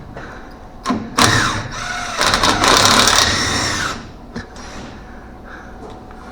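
A power tool run in two goes: a short spin about a second in, then a longer run of about two seconds that winds down. It is working a nut or clamp on the front suspension.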